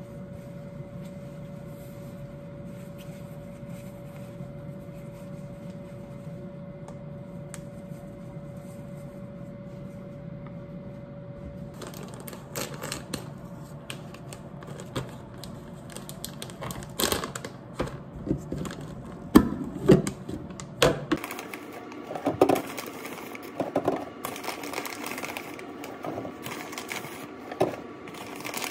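A steady faint hum for about the first twelve seconds, then packaging being handled: plastic wrap and bags crinkling, with clicks and taps against a clear plastic storage canister. Near the end, tea bags are tipped from their bag into the canister with a dense rustle.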